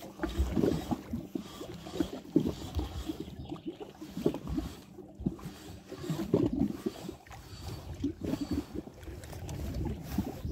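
Water lapping and sloshing at the river's edge in small, irregular splashes.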